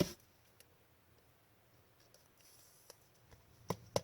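Trading cards being handled: a faint slide of card on card and a few light clicks and taps, with two sharper clicks near the end.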